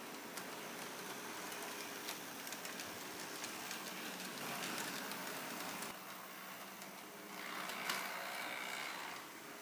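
H0-scale model streetcars running on a layout: a steady whirr of small electric motors and wheels on track, with light ticks. The sound swells twice as cars pass near, about halfway and again for the last two seconds, with a faint whine and a sharp click near the end.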